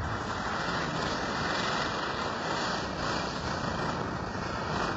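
Diwali ground firework spraying sparks with a steady hiss.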